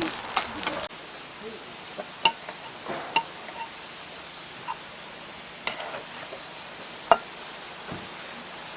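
A loud, crackly noise that cuts off abruptly about a second in, then a quiet background with a handful of sharp, faintly ringing clicks spaced irregularly, like light taps on a hard object.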